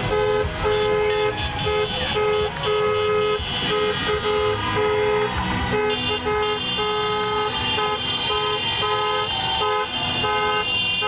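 Several car horns honking together in celebration, in short toots and longer blasts that start and stop and overlap one another, over the rumble of street traffic.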